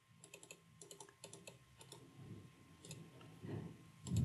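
Faint clicking of a computer mouse and keyboard: about a dozen light clicks in the first two seconds, a few more after, and a soft low thud near the end.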